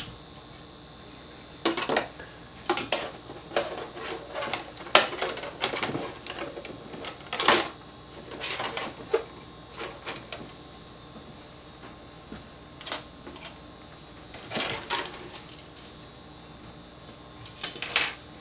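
Plastic milk jug and plastic tub being handled and set in place, with wire being worked by hand: irregular clicks and knocks of plastic. They are thickest in the first half and thin out toward the end.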